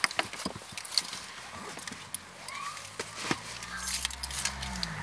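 Clicks, knocks and rustling as gear is handled in a car boot. In the last second or two a low car engine hum comes up underneath, its pitch rising slightly.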